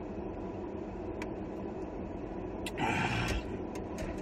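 Steady hum inside a parked car's cabin, with a brief louder rustle about three seconds in.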